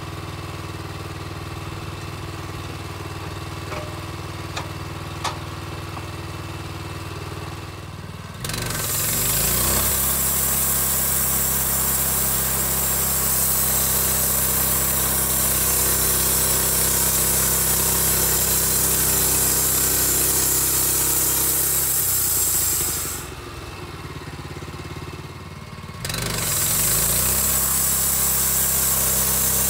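Portable band sawmill's gas engine idling with a few light clicks, then throttled up about eight seconds in so the band blade spins and cuts through an eastern white cedar log with a loud steady hiss over the engine. Near the end it drops back to idle for a few seconds, then revs up again.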